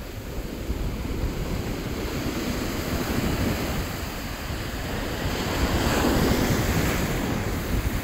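Surf breaking and washing up a pebble beach, the wash swelling louder about six seconds in, with wind buffeting the microphone.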